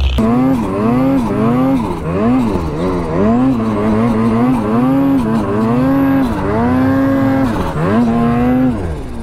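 Mountain snowmobile engine revving up and down over and over as the rider works the throttle in deep powder, its pitch rising and falling several times a second.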